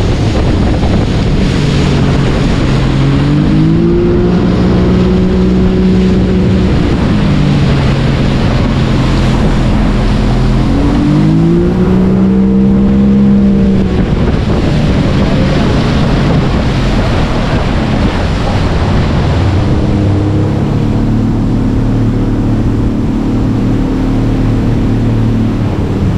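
Small motorboat's outboard engine running under way, its pitch rising and falling twice and later holding steady, with wind buffeting the microphone.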